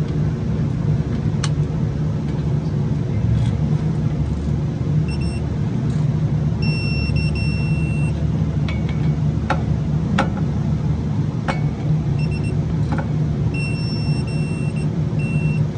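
Digital torque wrench beeping as it reaches its 133 ft-lb setting on the wheel hub bearing bolts: several high beeps, two of them held for about a second, with a few sharp metal clicks of the tools. Under it runs a steady low engine rumble.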